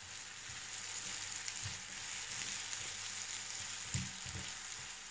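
Diced onion, carrot and green beans sizzling steadily in olive oil and butter in a nonstick frying pan as a spatula stirs them, with a few soft knocks of the spatula against the pan.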